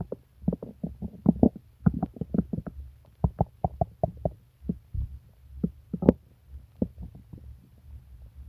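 Stomach gurgling from an upset stomach: an irregular run of short pops and bubbling gurgles, with one sharper pop about six seconds in.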